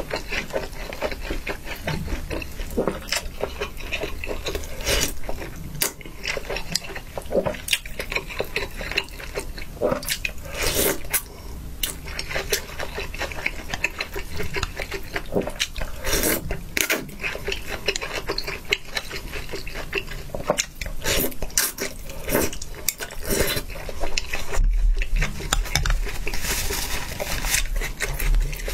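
Close-miked eating of spicy noodles: irregular wet chewing and slurping, with sharp little clicks from mouth and chopsticks. Near the end a paper napkin rustles as the mouth is wiped.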